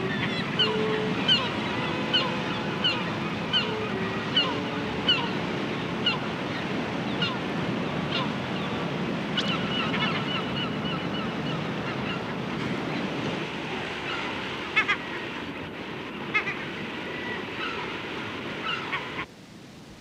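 Seabirds calling over a steady wash of surf. The short, sharp calls come about once a second at first and grow sparser later, and the sound cuts off suddenly near the end.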